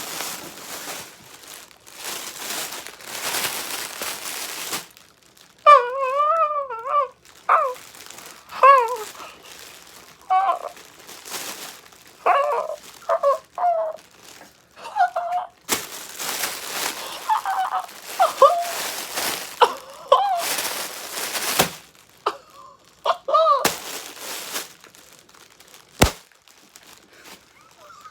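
A person crying with emotion: high, wavering whimpers and sobbing wails, broken up by bursts of rustling noise.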